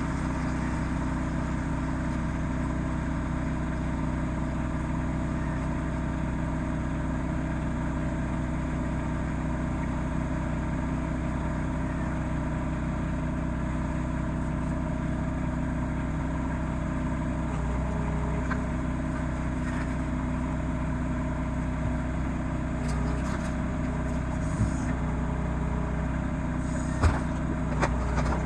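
RK25 compact tractor's diesel engine running at a steady speed while the backhoe works, with a few sharp knocks near the end.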